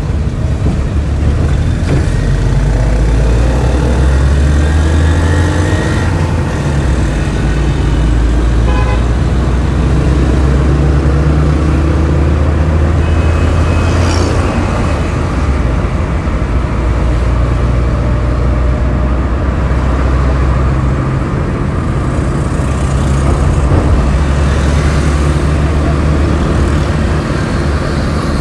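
Continuous road traffic: motor vehicle engines running and passing, with a steady deep rumble and engine notes that slowly rise and fall.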